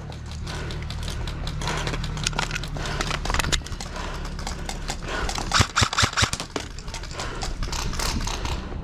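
Airsoft guns firing: irregular sharp snaps and clicks, with a quick cluster a little after the middle and another about two-thirds in.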